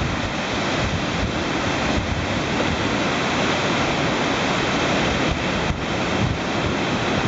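Loud, steady rush of a river's whitewater rapids in flood, with some wind rumble on the microphone.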